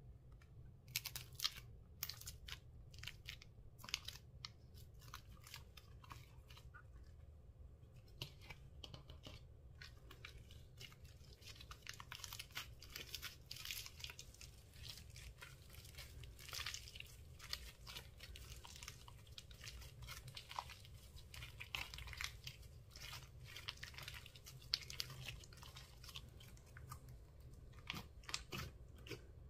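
Slime packed with foam beads being stretched and kneaded by hand, giving a quiet, irregular run of crackles, pops and squishes. There are a few sharper clicks in the first few seconds, and the crackling grows denser through the middle.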